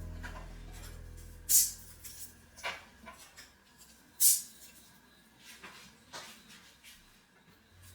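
Plastic food containers and storage baskets being handled and set down. There are two sharp clacks, about a second and a half in and again near four seconds in, with lighter knocks and taps in between. A low tone fades out over the first second or two.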